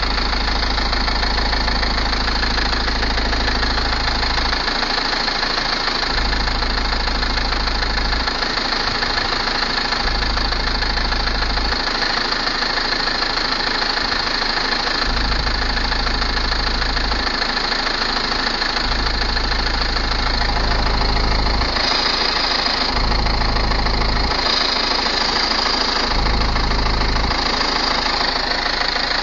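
Renault Laguna II 2.2 dCi turbodiesel engine running, with a strange deep hum that comes and goes every one to two seconds, irregularly, under a steady hiss. The owner suspects a bad air filter.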